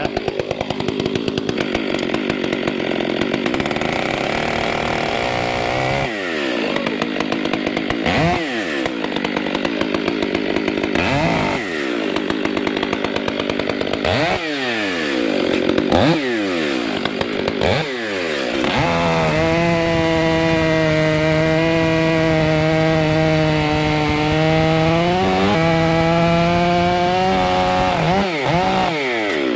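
STIHL MS500i fuel-injected two-stroke chainsaw running. It is revved up and down several times, then held at high revs for about eight seconds and drops back near the end.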